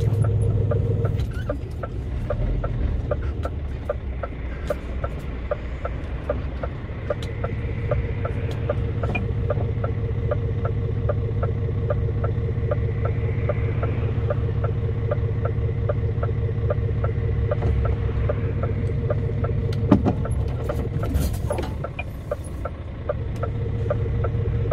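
Heavy lorry under way, heard from inside the cab: a steady diesel engine drone with a light, rapid, regular ticking over it, and a faint whine that rises and stops about halfway through. The engine note drops briefly about a second in and again near the end, and there is one sharp knock a few seconds before the end.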